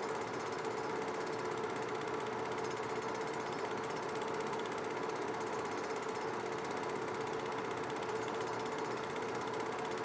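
Film projector running: a steady mechanical whir and fast, even clatter over a constant hum.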